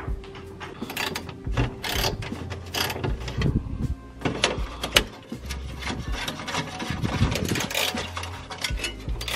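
Irregular clicks, rattles and scraping as hands work fasteners loose on an underbody panel of a Toyota GR86, plastic and metal knocking and rubbing.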